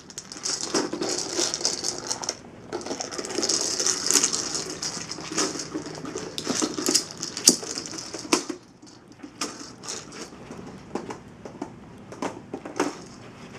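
Dry kibble rattling inside a plastic treat ball as a dog pushes it across carpet with its nose: a dense clatter for about eight seconds, then thinning to scattered rattles.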